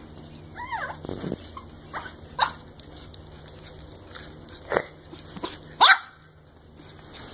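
A dog barking and yipping in short single calls spread out over several seconds, the loudest about six seconds in.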